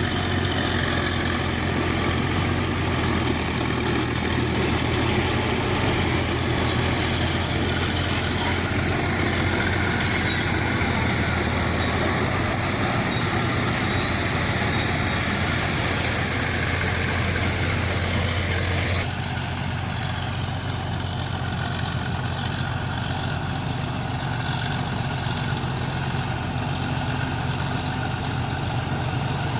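Bulldozer's diesel engine running steadily with a strong low drone. About two-thirds of the way through the sound cuts abruptly to a slightly quieter, duller version of the same engine noise.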